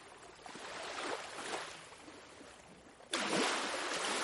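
Ocean waves washing ashore: soft swells of surf, then a louder wave breaking suddenly about three seconds in.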